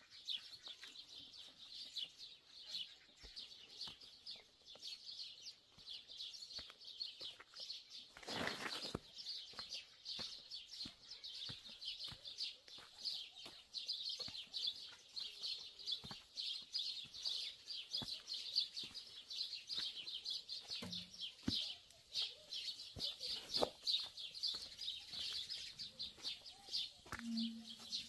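Small birds chirping densely and continuously in a rapid, high-pitched chatter, with a short rushing noise about eight seconds in.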